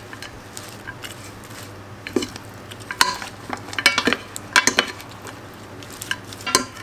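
Wooden salad servers tossing a red cabbage and rocket salad in an enamel bowl: irregular clacks of wood against the enamel, with a faint steady low hum underneath.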